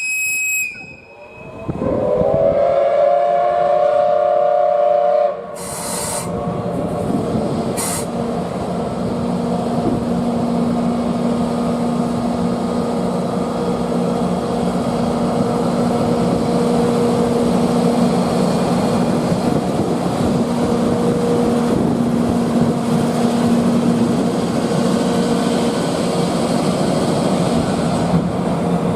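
A train whistle sounds for about three seconds, starting about two seconds in, with a slight rise in pitch as it opens. Then a locomotive-hauled train of old-type passenger coaches runs with a steady rumble and hum.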